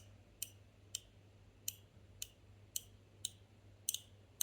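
Stainless-steel fidget slider (a XUANLV clone of the KOVO Feel floating light slider) being clicked step by step, with about ten sharp, crisp clicks at roughly two a second.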